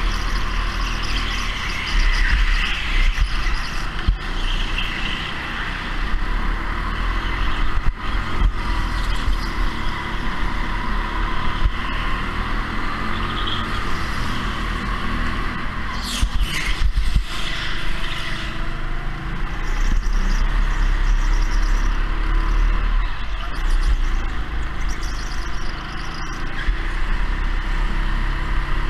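Go-kart running at speed: a continuous drone of motor and tyre noise whose pitch rises and falls slightly, with a few sharp knocks about sixteen seconds in.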